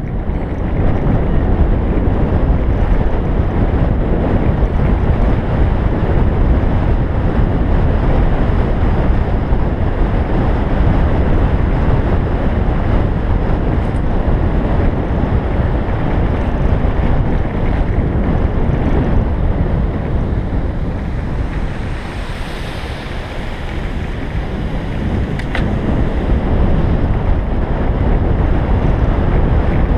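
Heavy wind buffeting the microphone of a bicycle-mounted camera on a fast road descent: a steady, loud rushing noise. It eases for a couple of seconds about two-thirds of the way through, then builds again.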